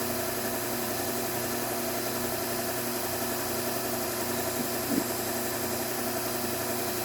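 Bucktool slow-speed belt sander running steadily, its motor humming under the hiss of the moving belt, with a short knock about five seconds in.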